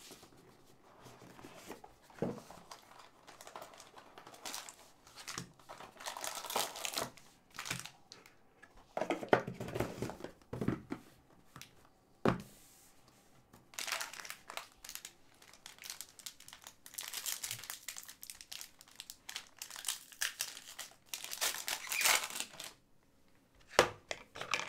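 Packaging of a trading-card box being torn open and crinkled by hand, in irregular bursts with short pauses and a few sharp clicks.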